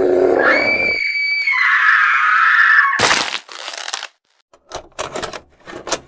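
A voice rising from a groan into a long, shrill scream that is cut off about three seconds in by a sharp crack, followed by a few faint clicks near the end.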